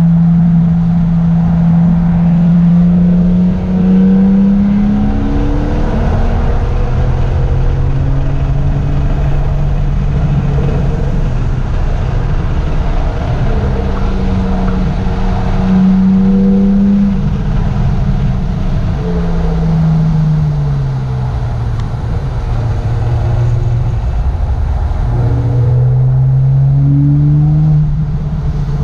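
A sports car's engine heard from inside the cabin while it is driven hard around a wet race track. Its note climbs under acceleration and drops back several times, with shifts and braking, over a steady hiss of tyres and spray on the wet road.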